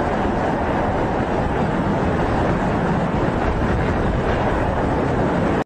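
Steady loud rush of wind buffeting the microphone as the camera moves fast, cutting off abruptly at the end.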